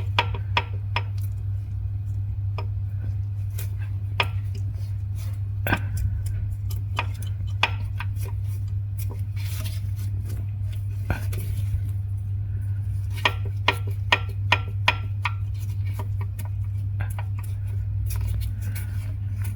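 Metal hand tools and engine bottom-end parts clinking and tapping during disassembly: scattered light clicks, with a quicker run of clicks about two-thirds of the way in, over a steady low hum.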